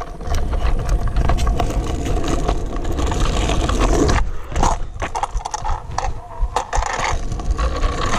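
Stunt kick scooter's wheels rolling over rough asphalt, with wind rumbling on the microphone and a few knocks near the middle during a failed tailwhip attempt.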